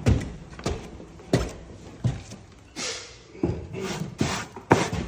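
Paint being scraped off an old wooden floor with a hand scraper, in repeated short strokes about every two-thirds of a second, one of them longer near the middle.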